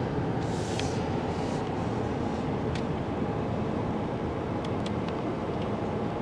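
Steady rumble of a car driving, engine and tyre noise heard from inside the cabin, with a few faint clicks.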